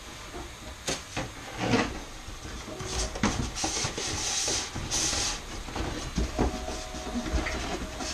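Cardboard packaging and a plastic bag being handled: rustling and crinkling, louder from about three to five and a half seconds in, with a few light knocks of cardboard against the bench.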